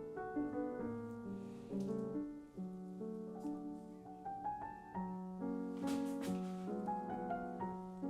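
Background piano music, notes moving in steps over held lower notes, with a few quick clicks about six seconds in.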